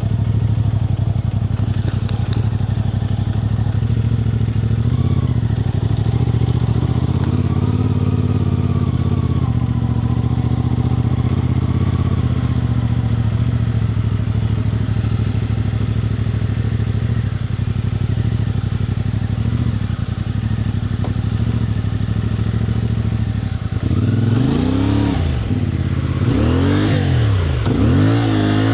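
A motor vehicle engine running steadily at an even pitch. Near the end it is revved up and back down about three times.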